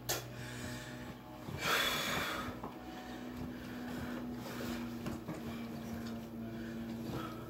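A person's forceful snort or breath out about two seconds in, amid soft creaks and thuds from a mattress as he shifts his weight on the bed. A faint steady hum sits underneath from a few seconds in.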